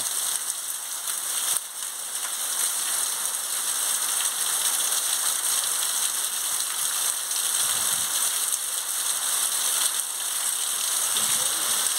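Heavy rain pouring steadily, an even hiss of rain striking the ground and roofs.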